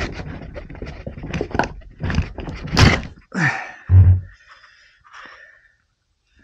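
Irregular knocks, clicks and rustling from handling a small diesel fuel injection pump and metal tools on a cloth-covered bench, with a heavier thump about four seconds in and quieter scraping near the end.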